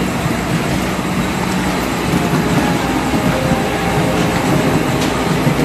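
Carrot-processing line running: conveyor belts and a rotating drum washer make a loud, steady rattling machinery noise, with carrots tumbling through it.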